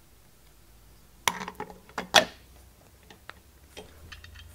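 Metal parts of a Tormach power drawbar's pneumatic cylinder clinking and knocking together as they are handled and fitted. There are several sharp knocks a little over a second in, the loudest about two seconds in, then a few lighter clicks.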